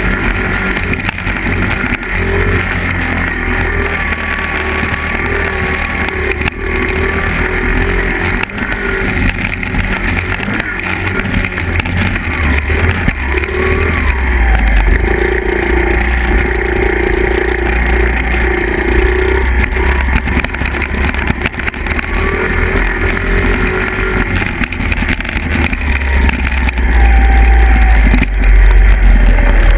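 Small single-cylinder four-stroke engines of 50cc Honda dirt bikes (an XR50R and a CRF50) running on a trail ride, their pitch rising and falling with the throttle. A low rumble grows loud near the end.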